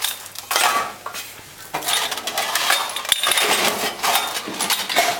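Loose metal unit-injector parts, springs and valve pieces, clinking and rattling in a stainless-steel tray as the tray is slid and handled into a metal tool-cabinet drawer. Irregular clatter with many short sharp clinks and scrapes.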